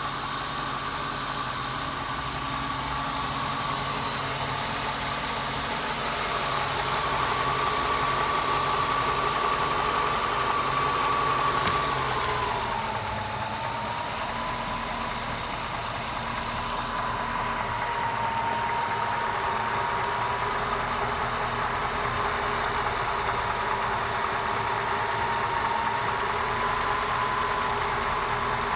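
Ford 4.6 L DOHC V8 idling, with a steady high whine over the engine note. About twelve seconds in, the idle drops: the pitch and loudness fall a little and settle there. An idle drop like this is how the vacuum leak is pinpointed.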